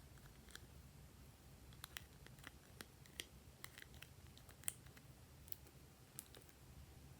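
Glossy slime being handled by hand, giving off faint sticky clicks and pops, about a dozen of them scattered irregularly from about two seconds in, over a low steady hum.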